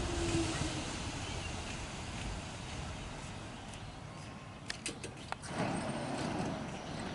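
A Staten Island Railway R44 subway train pulls into the station and slows to a stop, its rumble and hiss easing off. A few sharp clicks come about five seconds in.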